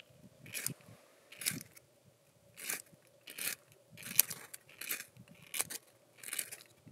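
A fire-starter struck over and over to throw sparks onto tinder: about nine short scrapes, a little more than one a second. The tinder is not catching.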